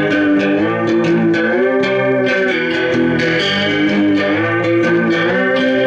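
Electric guitar played through a chain of floor effects pedals into a Peavey amp: a short tune of sustained notes that glide in pitch over changing lower notes.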